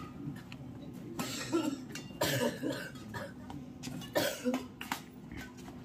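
Badminton rally: sharp racket strikes on the shuttlecock, with a few short cough-like bursts from the players or onlookers.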